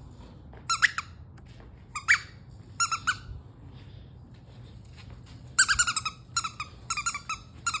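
Squeaky dog toy squeaking in short, high squeaks: three single squeaks in the first few seconds, then a quick run of them from about five and a half seconds in.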